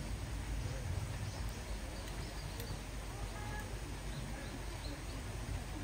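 Faint, repeated short chirps of small birds over a steady outdoor background noise.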